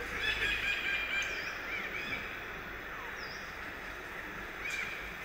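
High-pitched animal calls over steady outdoor background noise: a layered squealing call about a second long at the start, then a few short chirps and a falling call, and another brief call near the end.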